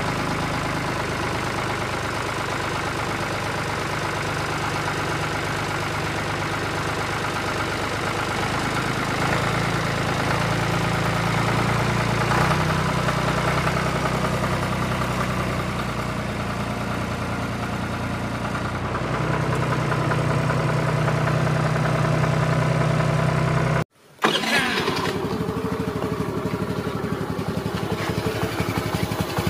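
Tractor engine running steadily at idle, its low note stepping up and down a few times. It cuts out abruptly for a moment about 24 seconds in, then a different engine sound carries on.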